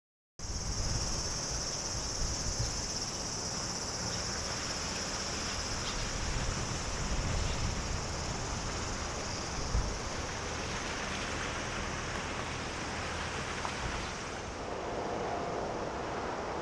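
A steady insect chorus, a continuous high-pitched trill, over a low, even rumble of outdoor ambience. The insects fade away near the end.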